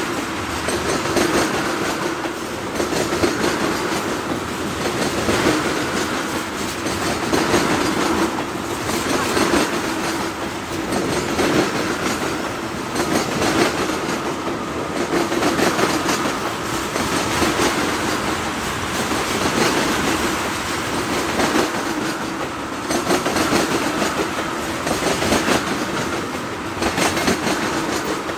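Freight train of tank cars rolling past at close range: a steady rumble of steel wheels on rail with a clickety-clack that swells about every two seconds.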